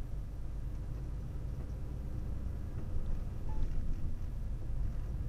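Engine and road noise of a moving vehicle heard from inside the cab: a steady low rumble that grows a little louder about halfway through.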